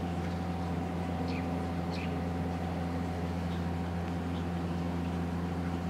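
A steady machine hum with several fixed tones over faint hiss, with no speech.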